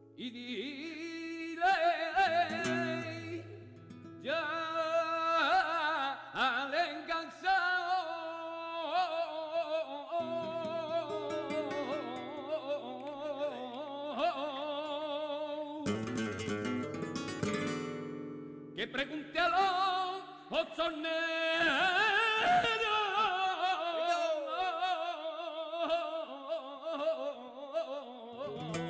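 Flamenco music: a solo voice sings long, bending, ornamented phrases over acoustic guitar accompaniment.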